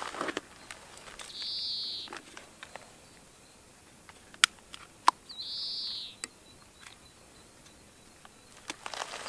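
A bird gives the same short call three times, about every four seconds, each call lasting under a second. In the middle come two sharp clicks about half a second apart, the loudest sounds, from fishing tackle being handled.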